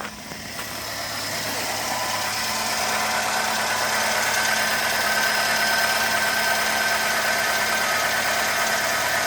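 Renault Logan 1.6 8-valve engine idling cold with a foreign knocking noise, as if someone is knocking inside the engine. The owner does not know the cause. The sound grows louder over the first few seconds, then holds steady.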